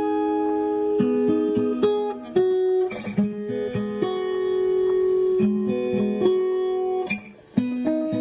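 Background music: a melody plucked on a guitar, with a brief break near the end.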